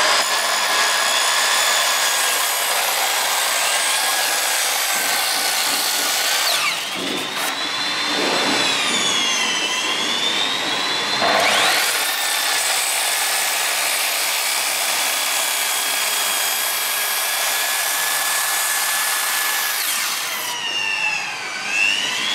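Corded Ryobi circular saw cutting into a timber beam, its motor whining steadily with the rasp of the blade in the wood. The pitch sags and recovers as the blade loads up, about a third of the way in and again near the end.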